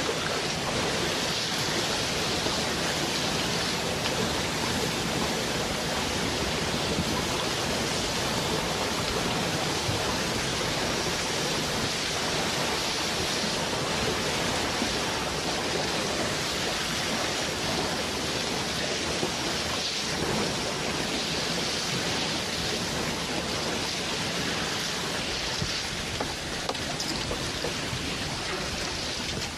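Steady, even hiss of rushing water, an ambient water sound effect, holding level throughout.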